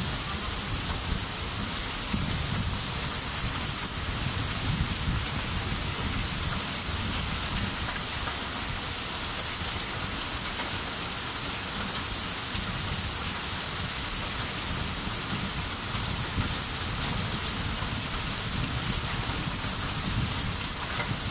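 Heavy rain falling steadily on pavement, an even hiss that doesn't let up.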